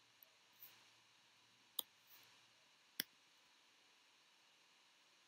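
A few isolated computer keyboard keystrokes: two faint clicks in the first second, then two louder ones a little over a second apart. Otherwise near silence.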